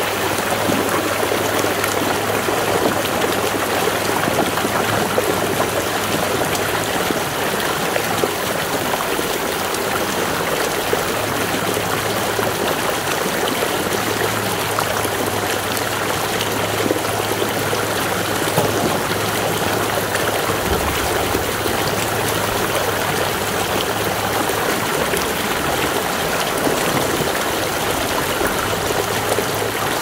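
Lake drain outlet pipe discharging a steady stream of muddy water that splashes down below its mouth. The drain is running freely, its beaver clog cleared.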